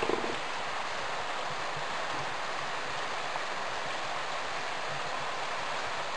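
Steady, even hiss with no clear events in it; a short low grunt sounds right at the start.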